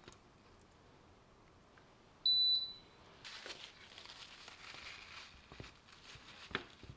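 A single short, high electronic beep, followed by a paper towel rustling as it wipes spilled egg off a plate's rim, with a few light taps near the end.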